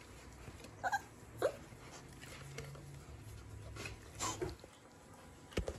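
Five-week-old American bully puppy whimpering: a few short, high whines, about a second in and again past the middle.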